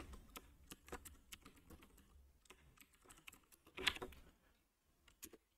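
Faint, irregular key presses of someone typing on a computer keyboard, with one louder sound about four seconds in.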